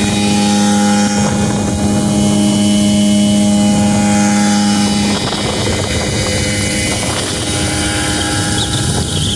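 Motorboat engine running at a steady pitch. The steady tone gives way to a rougher, noisier hum about five seconds in, then returns near the end.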